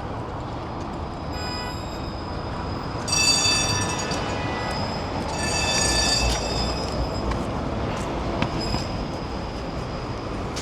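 City street traffic noise with high-pitched metallic squealing from a passing vehicle, in two main bouts, about three seconds in and again about five and a half seconds in.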